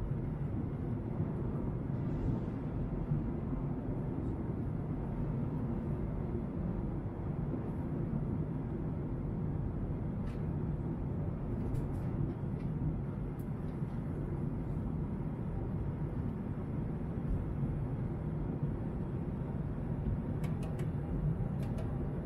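Steady low rumble of an airliner cabin in flight: engine and airflow noise heard through the fuselage, with a few faint clicks.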